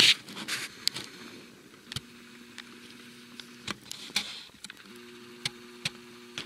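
Camcorder handling noise: a rush of wind on the microphone at the start, scattered sharp clicks, and twice a steady low hum of the zoom motor, each lasting about a second and a half.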